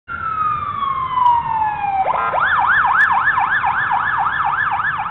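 Electronic emergency-vehicle siren: a long falling wail, then, about two seconds in, a fast yelp that rises and falls about four times a second.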